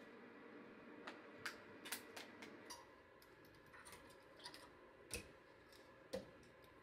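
Near silence with scattered faint clicks and taps, about five in the first three seconds and two more later.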